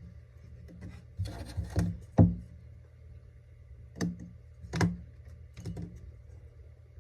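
Handling sounds from fletching arrows with a Bitzenberger jig: a short rustle ending in a sharp knock, then three separate clicks, as the jig and its fletching clamp are worked.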